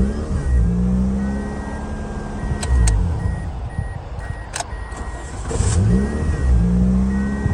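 Toyota Matrix engine starting and rising to a fast idle, then rising again about six seconds in, with a few sharp clicks and a faint repeating chime. It now starts normally with the neutral safety switch plug reconnected, which the owner hopes has cured the dead start.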